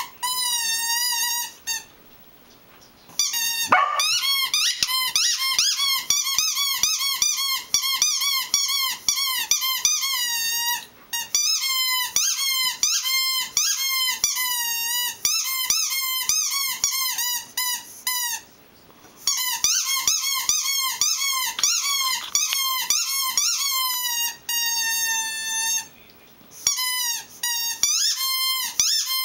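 A plush dog toy's squeaker squeaked over and over as a Samoyed chews it: rapid runs of high, wavering squeaks, broken by a few short pauses.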